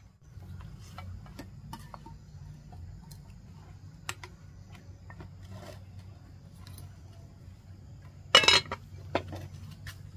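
Scattered light clicks and knocks over a steady low hum, with one louder clatter about eight and a half seconds in.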